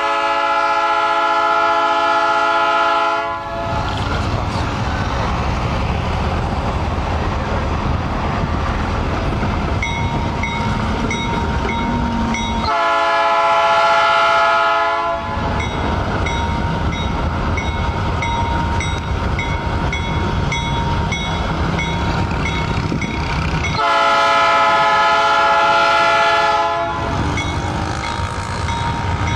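Diesel freight locomotives sounding a multi-note air horn three times, each blast about three seconds long and roughly ten seconds apart, over the steady low rumble of the locomotives' diesel engines as the train approaches.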